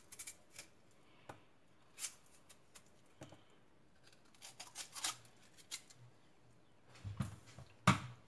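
Kitchen knife cutting chunks off a peeled yam held over a ceramic dish, the pieces dropping in: scattered soft cutting clicks and knocks, several in quick succession around the middle, with a sharper knock near the end.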